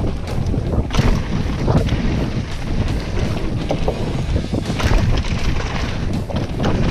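Wind buffeting the microphone of a camera on a mountain bike ridden fast down a forest trail, over a steady rumble of the tyres. Frequent sharp knocks and rattles come from the bike jolting over wooden boardwalk planks and dirt.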